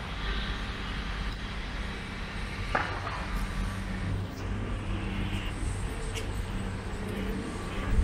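Steady hum of city road traffic, with one brief sharp click about three seconds in.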